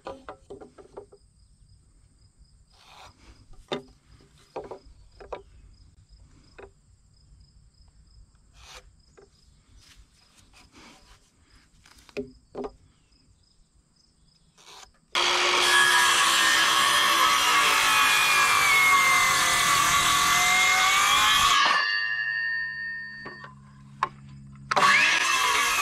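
Light taps and scrapes of a metal combination square and pencil marking out a wooden post, then a DeWalt circular saw cutting through the post for about seven seconds, its whine sagging a little under load before the blade spins down. About three seconds later the saw starts again for a second cut.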